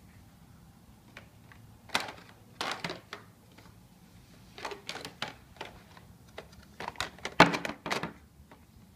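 Hard plastic toy animal figures clicking and knocking against a plastic toy barn as they are handled and set down, an irregular scatter of taps with the loudest knock about seven and a half seconds in.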